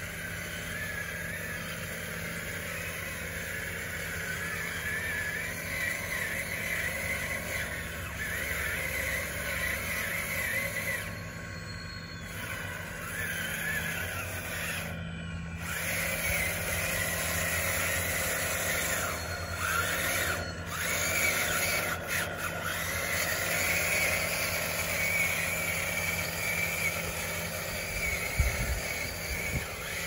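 Electric motors and gearing of a radio-controlled model construction machine whining as it drives and works, the pitch rising and falling with speed.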